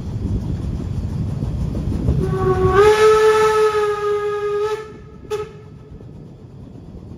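Steam whistle of a Saxon VII K narrow-gauge steam locomotive: one long blast of about two and a half seconds that rises slightly in pitch as it opens, then a short toot. Before the whistle, the train's low rumble as it rolls along the track.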